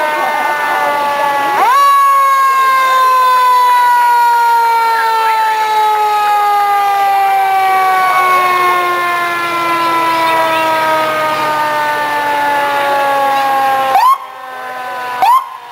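Fire truck's mechanical siren, wound up once and then coasting down in a long, slow falling wail. Near the end it gives two brief upward whoops.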